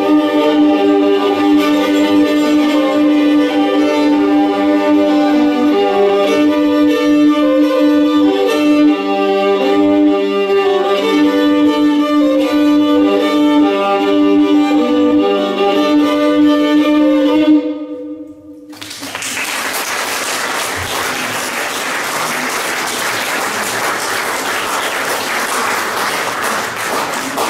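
Solo violin playing a folk-themed improvisation, a melody over a held low drone note, which stops about two-thirds of the way through. After a brief pause the audience applauds steadily.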